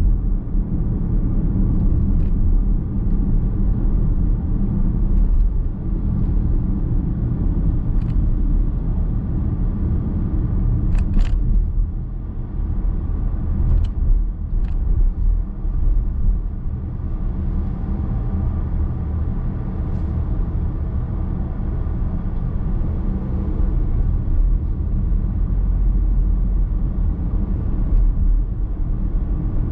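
Steady low rumble of a car driving along, tyre and road noise with the engine, heard from inside the cabin, with a few faint short clicks here and there.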